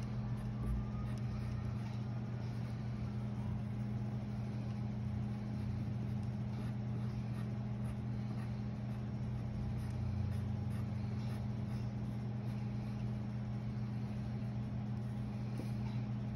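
A steady low machine hum with two constant pitches, under faint pencil scratching on paper.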